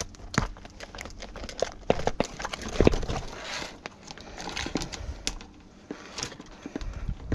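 Irregular clicks, knocks and rattles of hands working at a discarded electric fan, struggling to pull parts off it, with some crinkling between the knocks; the loudest knock comes about three seconds in.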